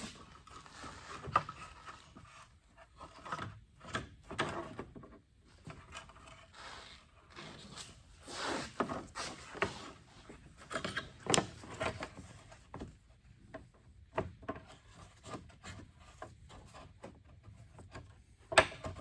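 Irregular rubbing, scraping and knocking of parts being handled as the charge air cooler is worked up into place under the car, with a few sharper knocks.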